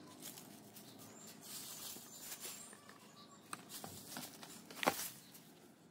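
Dry leaves being dropped and spread by hand into a compost pot: faint, irregular rustling and crackling, with one sharper tap about five seconds in.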